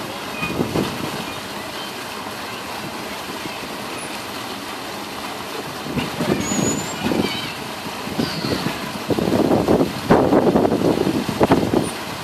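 Outdoor crowd ambience around a dolphin pool: a steady background hiss with distant voices of people talking, louder in the second half, and a few faint high chirps.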